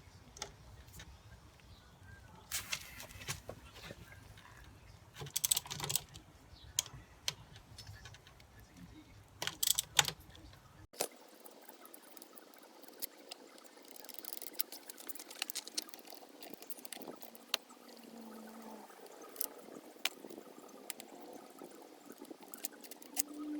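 Intermittent clicks, clinks and short rattling bursts of a socket wrench and metal parts being handled while the 13 mm front brake caliper bolts are undone. A low background rumble cuts off about eleven seconds in, and fainter clicks and handling noise follow.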